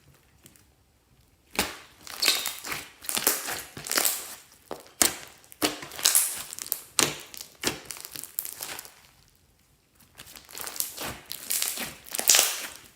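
Clear slime being squeezed and kneaded by hand, giving sticky crackling and popping noises in repeated bursts, with a short pause about three-quarters of the way through.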